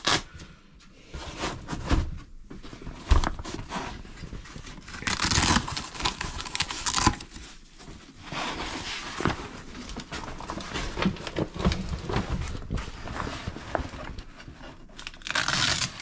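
Pannier bags being unclipped and taken off a bicycle's rear rack: irregular clicks and knocks with rustling of bag fabric.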